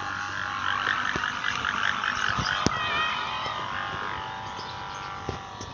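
Several bamboo kite hummers (sawangan) on kites high overhead, humming in the wind. They make a dense chorus of wavering, warbling high tones that is loudest in the first half and fades toward the end.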